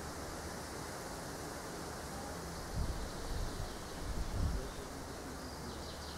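Outdoor woodland ambience: a steady hiss of air, with a couple of low gusts of wind buffeting the microphone about halfway through. A faint high buzz starts near the end.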